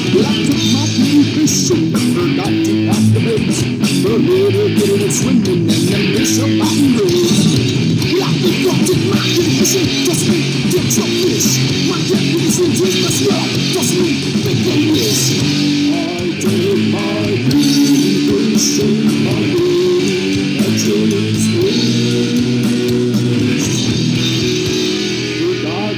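A heavy metal song in a distorted, poor-quality recording, driven by guitar, in a passage without singing.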